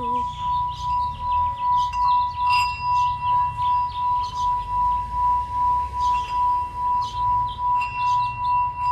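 A brass singing bowl sung by rubbing a wooden striker around its rim: one steady, sustained ringing tone that wobbles in loudness about three times a second. Birds chirp faintly over it.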